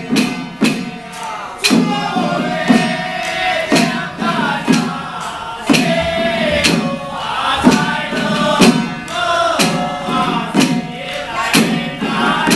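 Ritual chanting in a male voice over a steady beat, a sharp percussion strike about once a second, typical of a Taoist eye-opening (kaiguang) rite.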